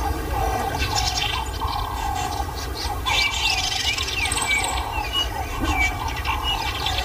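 Wild birds calling in the bush: a repeated mid-pitched call about twice a second, joined from about three seconds in by bursts of high, quick chirps. A steady low rumble runs underneath.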